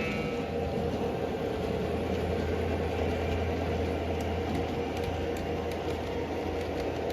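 Model train running on the layout: a steady motor hum and whine, with a few faint clicks of wheels over the rail joints later on.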